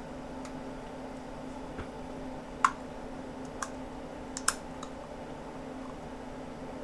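A few sharp clicks and taps as a 2.5-inch laptop IDE hard drive is handled and lined up against a USB adapter's IDE connector. The loudest click comes about two and a half seconds in, with a cluster of smaller ones a second or two later, over a steady low hum.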